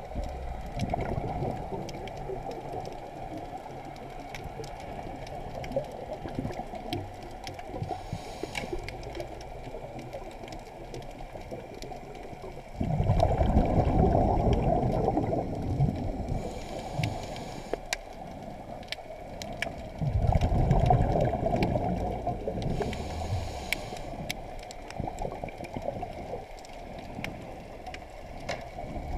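Scuba diver's breathing heard underwater through a camera's waterproof housing: a steady muffled water rumble, with two loud rushing bursts of exhaled regulator bubbles about a quarter and two-thirds of the way through. Fainter hissing breaths and scattered faint clicks come in between.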